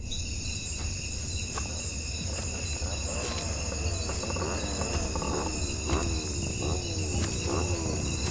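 Insect ambience: crickets trilling steadily in several high tones over a low rumble. From about three seconds in, a string of short falling calls repeats roughly once a second.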